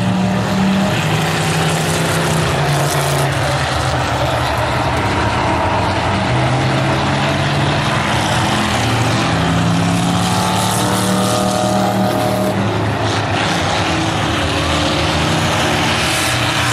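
Several stock car engines running hard around a short oval track. Their overlapping pitches rise and fall as the cars circle.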